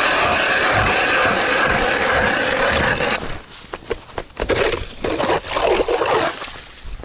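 Hand ice auger cutting a hole in lake ice: a steady grinding scrape of the blades for about three seconds, then more uneven crunching and scraping with short clicks to the end.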